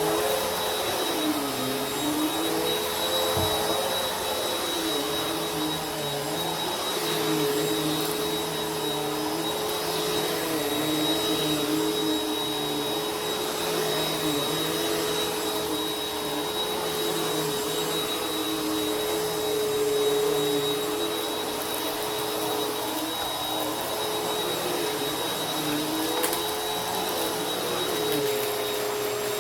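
Vacuum cleaner motor running continuously with a steady whine and a faint high whistle. A lower note in the hum dips and comes back up every two to three seconds.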